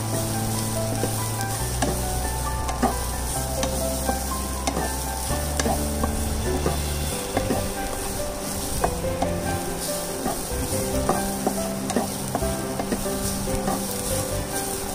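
Grated coconut mixture sautéing in a non-stick pan, sizzling steadily as a wooden spatula stirs and scrapes through it, with frequent small ticks of the spatula against the pan.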